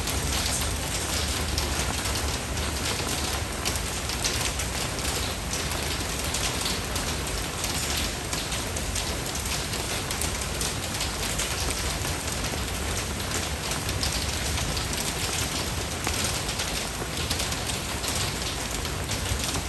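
Steady rain falling, a dense even hiss with many fine drop patters.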